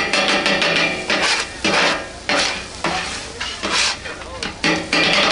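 Metal spatulas clattering and scraping on a hot flat griddle over sizzling food: a rapid clatter in the first second, then single loud strokes about every half second to second.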